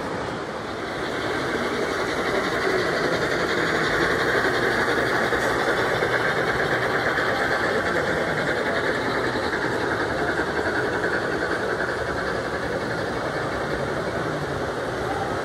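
Model trains running on a layout: a steady dense rattle of metal wheels on the rails with the hum of their small motors, growing louder about two seconds in.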